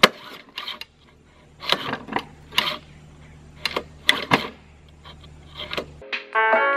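Sharp clacks and short rasps from the rusty recoil starter of a flood-damaged walk-behind lawn mower as the pull cord is worked by hand; the recoil isn't working. About six seconds in, plucked-string and keyboard music starts.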